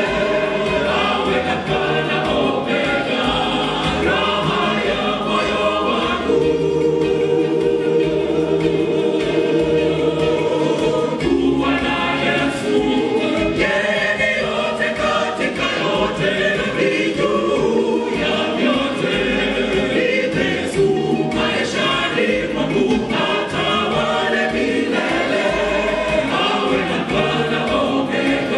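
Mixed choir of women's and men's voices singing a gospel song live into microphones, with a long chord held for several seconds midway.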